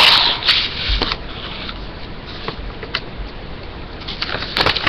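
Paper rustling and crinkling as a mailed sticker pack is handled and opened. There is a burst of rustling at the start and again near the end, with a few light ticks between them, over steady microphone hiss.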